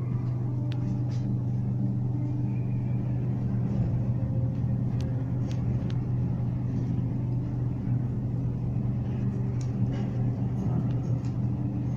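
Steady low hum with a few overtones from a glass lift cabin descending, with faint clicks now and then.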